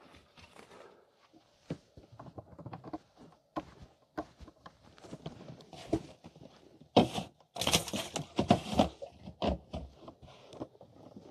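Scattered knocks, thumps and clatter of handling inside a fishing boat, with a louder busy stretch of knocks and rustling noise about seven seconds in that lasts about two seconds.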